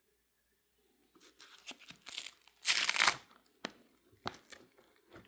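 Trading cards being handled and shuffled: irregular crinkling and rustling, loudest about two to three seconds in, with a few short sharp clicks after.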